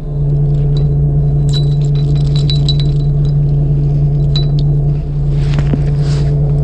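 A fishing boat's engine running steadily with a low hum. Light clinks of a lure rig and sinker being handled come about a second and a half in, with a short rustle near the end.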